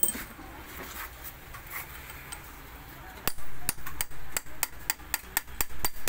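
Ball-peen hammer striking a steel punch against the slotted bearing adjuster ring of an Eicher 10.55 truck differential, turning the adjuster while setting the crown-wheel (bevel gear). Quick, sharp metallic strikes about four a second with a ringing tone, starting about halfway through after some quiet clinking of parts.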